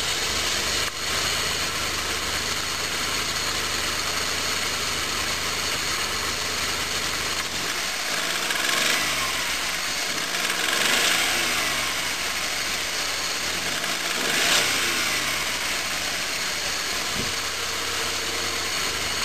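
1988 Subaru Justy's 1.2-litre carbureted EF12 three-cylinder engine idling, then revved up three times about halfway through, each time falling back to idle. The engine has a knock the owner likens to marbles loose in the engine and suspects is main-bearing oil starvation.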